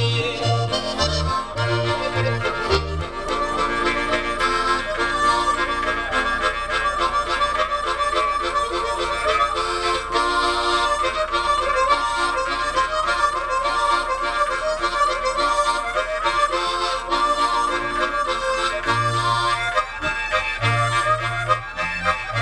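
Two harmonicas played into microphones, carrying a Sardinian ballo campidanese dance tune. A diatonic accordion's alternating bass notes sound underneath in the first few seconds and again near the end.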